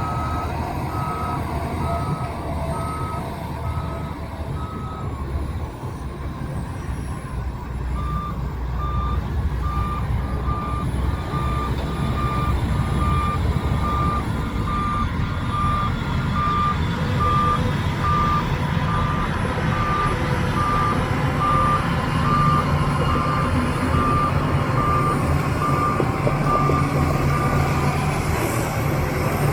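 Backup alarm on heavy earthmoving equipment beeping about twice a second over the low rumble of diesel engines. The beeping breaks off about five seconds in and starts again a few seconds later at a slightly lower pitch, as from a second machine.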